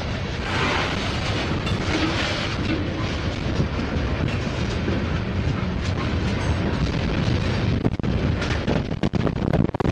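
Freight cars rolling past close by: a steady rumble of steel wheels on rail with clicking over the rail joints. Near the end the sound turns choppy, with a run of sharp knocks.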